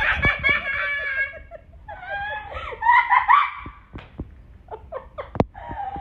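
African grey parrot giggling in a mimic of human laughter, in two high, rapidly pulsing bouts, followed by a few sharp clicks.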